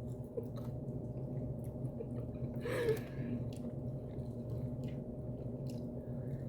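Mouth-close chewing of chicken wings, with small wet clicks and smacks and a short breathy vocal sound about three seconds in, over a steady low hum.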